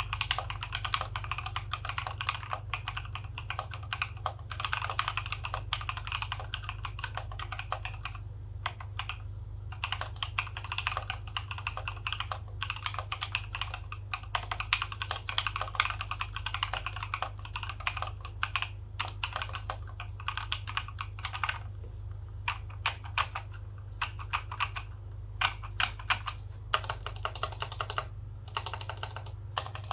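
Typing on a Basketweave-PCB mechanical keyboard with stock Alpaca v2 linear switches, an FR4 plate and PBT keycaps: a fast, dense run of keystroke clacks with a few short pauses, thinning to separate single key presses in the last several seconds.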